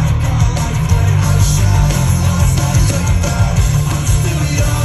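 Loud live rock band playing through a festival PA: electric guitar over a heavy, booming bass, continuous throughout.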